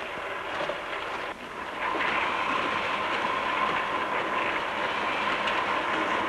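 Drum concrete mixers running: a steady mechanical clatter with a constant whine, which comes in louder about two seconds in.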